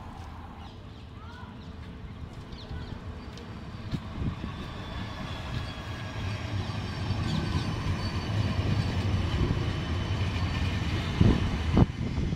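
Siemens Avanto electric tram-train approaching and passing close by, its running rumble growing louder over the first few seconds, with a faint high whine. Near the end, two sharp knocks from its wheels stand out as the loudest sounds.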